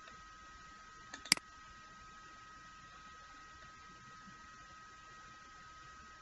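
A computer mouse click about a second in, with a couple of small ticks just before it, over a faint steady high-pitched electrical whine.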